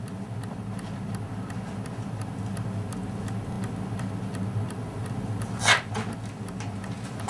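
Steady low hum with faint, evenly spaced ticking, and one brief rustling noise near the six-second mark.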